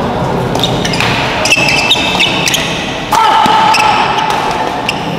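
Badminton rally on an indoor court: sharp cracks of rackets hitting the shuttlecock and short shoe squeaks over crowd chatter, echoing in a large hall. About three seconds in, a loud high tone starts and is held for about two seconds.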